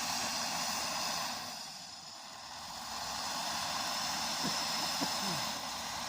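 Vehicle driving through deep snow: a steady rushing noise of the tyres ploughing through drifts, with the engine under it.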